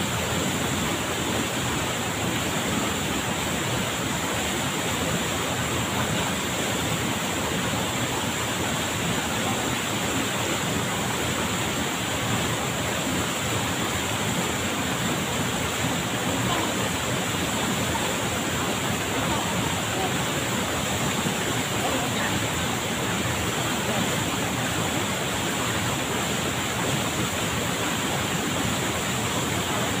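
Waterfall pouring into a rocky pool: a steady, unbroken rush of falling water.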